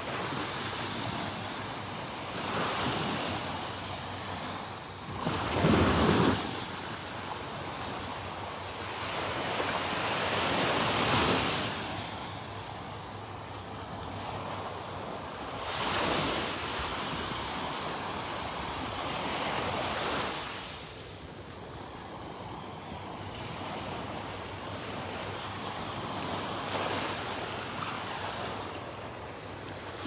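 Small, gentle Gulf of Mexico waves lapping and washing up onto a sandy beach, rising and falling every few seconds, with wind on the microphone. The loudest rush comes about six seconds in.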